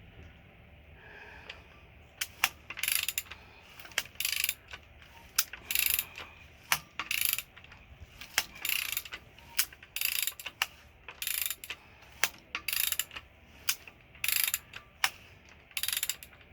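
Ratchet wrench clicking in a run of short bursts, one stroke after another, starting about two seconds in.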